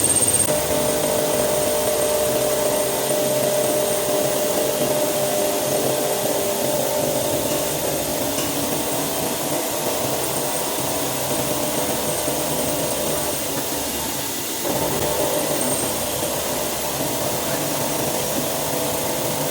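Hitachi Seiki VM50 vertical CNC mill cutting steel with a 35 mm cutter at 1000 rpm: a steady cutting noise with a held tone in it. It dips briefly about three-quarters of the way through, then comes back a little louder.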